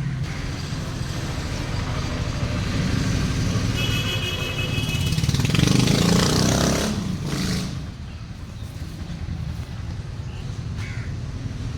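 Motorcycle riding along a road, a steady low engine and road rumble. A vehicle horn sounds briefly about four seconds in, and another vehicle passes loudly a couple of seconds later.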